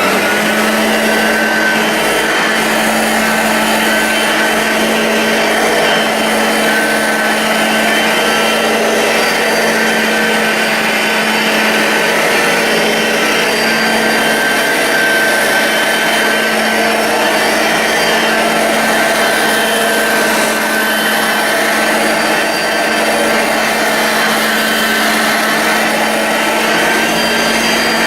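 Hoover Junior U1036 upright vacuum cleaner running steadily at full speed, its motor giving a constant hum with a high whine over it.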